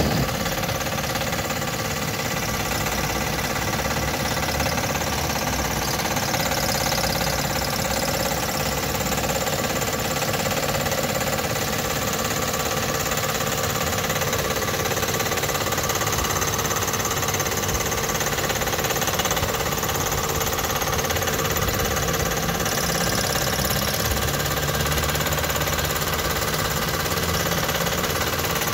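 2005 Acura RL engine idling steadily, recorded close to the accessory drive belt and pulleys, with a persistent noise from the belt area. The noise did not change after a new drive belt tensioner, and it goes away briefly when sprayed with WD-40 before coming back.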